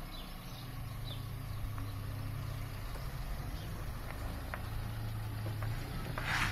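Suzuki Vitara 4x4's engine running steadily at low revs as it tows a loaded boat trailer at walking pace, with a few light clicks and a short rushing noise near the end.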